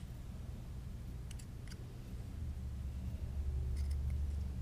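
Faint light clicks, a few at a time, of a metal hobby-knife blade and steel ruler touching a tile floor, over a low steady hum that grows louder about halfway through.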